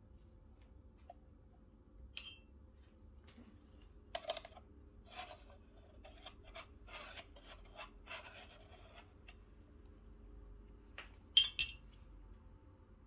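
Stainless-steel espresso portafilter and basket being handled: scattered metallic clinks and scrapes, a busy run of them from about four to nine seconds in, and two loud, sharp metal clinks near the end.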